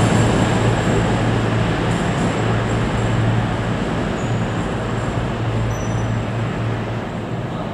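CrossCountry Voyager diesel-electric multiple unit at the platform, its underfloor diesel engines running with a steady low hum under a wash of train noise that slowly gets quieter as the train comes to a stand.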